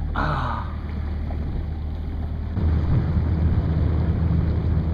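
Boat motor running with a steady low hum, growing louder about two and a half seconds in as it speeds up.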